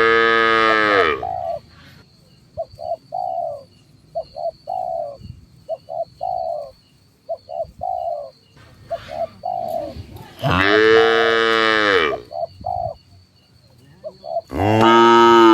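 Village cattle mooing three times in long, loud calls: at the start, about ten seconds in, and again near the end. Between the moos, doves coo in short repeated phrases, over a faint steady high-pitched tone.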